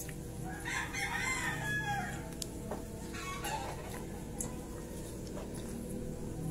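A rooster crowing once, about a second and a half long, starting a little under a second in, with a shorter call about three and a half seconds in.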